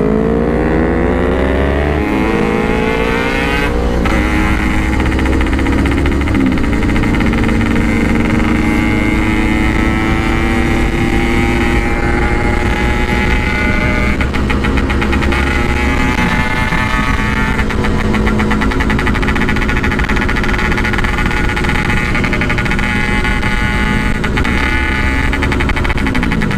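Yamaha RX-King's 135cc single-cylinder two-stroke engine running under way through a stock-look Packing Power exhaust. The revs climb over the first couple of seconds, dip briefly with a gear change about four seconds in, then hold a fairly steady pitch while cruising, and fall away near the end.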